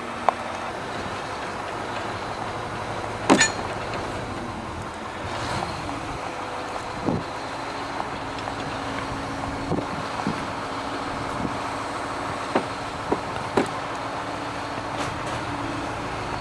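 Mobile crane's engine running steadily. A loud sharp knock comes about three seconds in, with several lighter knocks and clicks later on.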